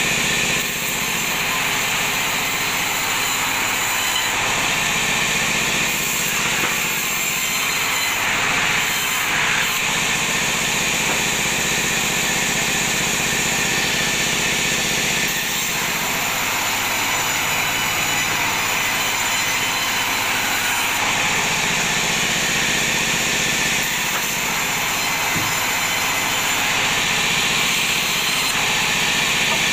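Large sawmill band saw running steadily and ripping teak offcuts into boards. The sound shifts in character a few times along the way.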